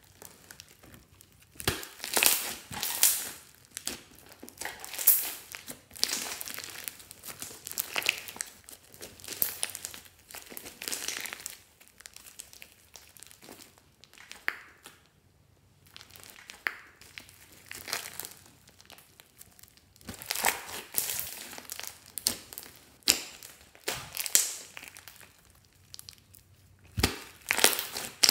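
Hands squeezing, stretching and folding a large mound of glossy slime mixed with small foam beads, giving irregular bursts of wet crackling and popping, with short quieter pauses between handfuls.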